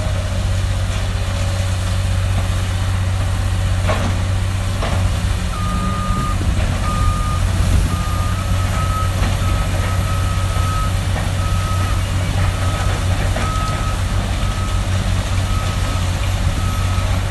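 Heavy machinery engine running steadily with a low drone. About five seconds in, a backup alarm starts beeping, one tone repeating roughly once a second, as the machine reverses.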